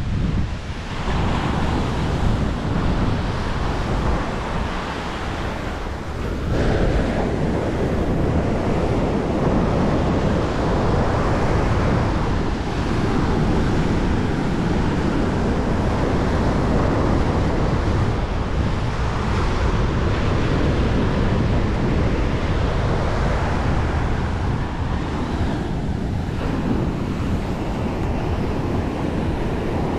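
Ocean surf washing steadily on a sandy beach, with wind buffeting the microphone and adding a low rumble.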